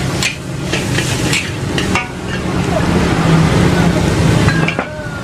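Long metal spatula scraping and clanking against a steel wok as fried noodles are stir-fried, with sizzling over a steady low rumble. The clanks come mostly in the first second or so.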